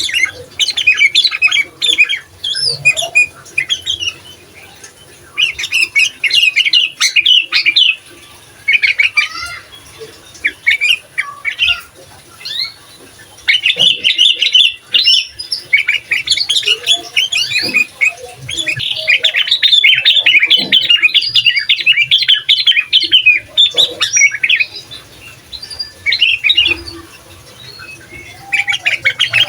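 Sooty-headed bulbul (kutilang) singing in rapid phrases of short, chattering notes, with brief gaps between phrases and a long unbroken run about two-thirds of the way through.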